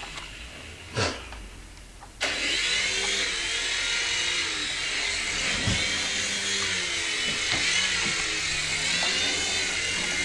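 Small electric remote-control helicopter's motor and rotor blades whirring as it spins up and flies. The whir is high-pitched and wavers in pitch, starting abruptly about two seconds in and stopping near the end.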